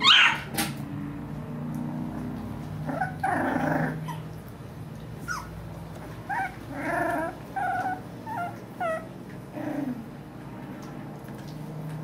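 21-day-old puppies whimpering and yipping in short, high squeaks. It opens with a high cry sliding down in pitch, then comes a quick run of squeaks in the second half.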